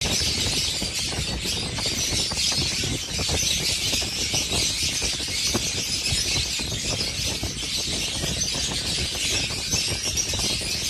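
Pet lovebirds chattering and screeching in a continuous high-pitched din, over a steady low rumble with small knocks.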